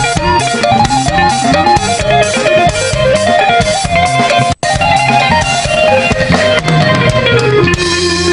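Instrumental background music: a stepping plucked melody over a bass line and a steady beat, cutting out for an instant about halfway through.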